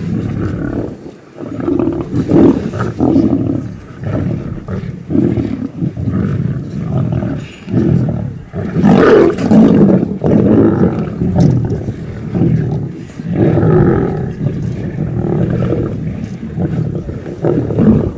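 Lions feeding at a fresh warthog kill, growling at each other as they compete over the carcass. The deep, guttural growls come in a near-continuous run of swelling rumbles and are loudest about nine seconds in.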